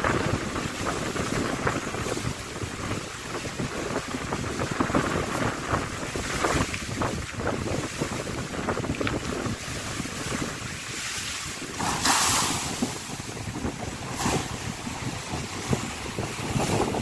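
Strong wind buffeting the microphone over choppy sea, with waves washing and slapping against a concrete seawall. The noise rises and falls in gusts, with one louder burst about three-quarters of the way through.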